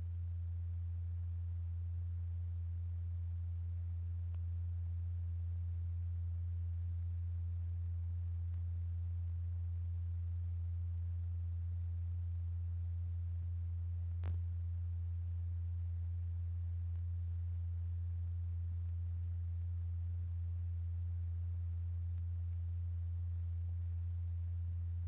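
A steady, unchanging low pure tone: the sine-wave tone driving the vibration that excites the liquid kaolin blob. A single brief click sounds about fourteen seconds in.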